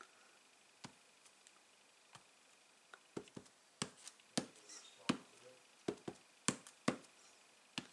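A clear acrylic stamp block being tapped onto an ink pad and pressed onto card stock: a run of sharp, irregular taps from about three seconds in, after a near-quiet start with a few faint clicks.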